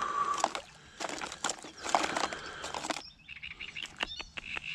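Small songbirds chirping and twittering in quick high notes through the second half, after a couple of seconds of rough rushing noise.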